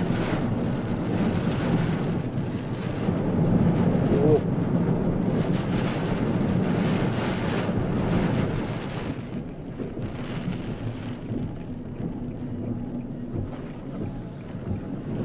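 Typhoon wind and rain, with gusts buffeting the microphone. The gusts swell and fade several times, and the storm eases somewhat after about nine seconds.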